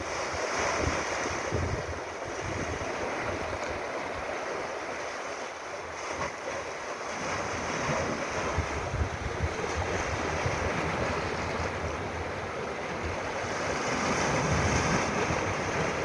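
Small sea waves washing into a rocky inlet and splashing against the rocks, a steady wash that swells a little near the end. Gusts of wind rumble on the microphone now and then.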